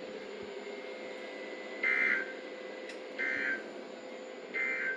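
Emergency Alert System end-of-message signal: three short bursts of screechy digital data tones, about 1.3 seconds apart. They mark the end of the weather alert broadcast.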